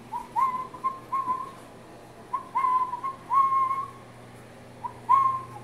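A person whistling to call the Airedale puppies: three quick phrases of about four short notes at one pitch, each phrase ending on a longer note.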